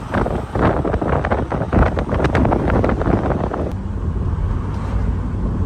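Wind rushing and buffeting against the microphone through an open window of a moving car, over the car's low road rumble. About two-thirds of the way through the buffeting eases off, leaving mostly the steady low rumble.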